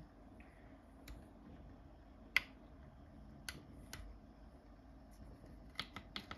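Small sharp clicks from the switches and push-buttons of a Boeing 737 cockpit clock being worked by hand: about seven in all, the loudest about two and a half seconds in and three in quick succession near the end as the CHR button is pressed, over a faint steady hum.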